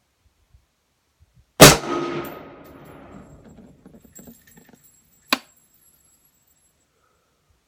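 A single shot from an S&W M&P 10 .308 semi-automatic rifle firing Winchester 180-grain Power Point: a sharp crack followed by a rumbling echo that dies away over about three seconds. A short, sharp click comes about four seconds later.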